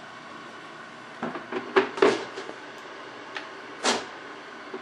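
Plastic knocks and rattles as the stacked trays of a PrintDry filament dryer are handled: a cluster of clatters about a second in, then one heavier thump near the end.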